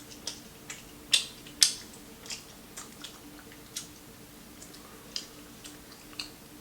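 Chewing crispy fried chicken close to the microphone: irregular crunches and mouth clicks, the two loudest close together a little over a second in.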